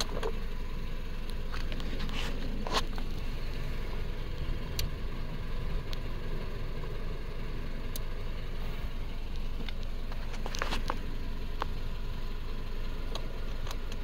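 Clicks and taps from an upright vacuum cleaner's foot-pedal power switch being pressed over a steady low rumble. The vacuum motor does not start, because the 400 W car power inverter cannot run it.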